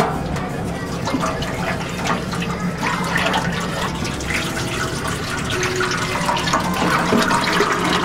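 Cooking oil pouring in a steady stream into a stainless steel deep fryer, filling the well.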